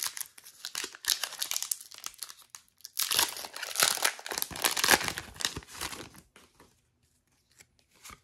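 Foil wrapper of a Pokémon trading-card booster pack being torn open and crinkled, a dense crackle loudest around the middle that thins out to a few faint ticks near the end.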